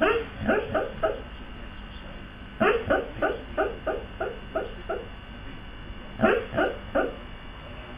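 A husky yipping and woofing in its sleep, in three bouts of short, quick yips: about four at the start, a longer run of about eight that fades in the middle, and three more near the end.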